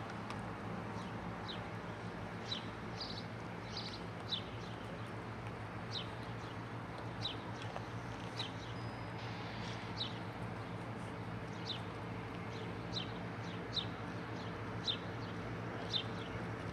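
A bird chirping over and over, short high chirps about once a second at uneven spacing, over a steady low engine drone.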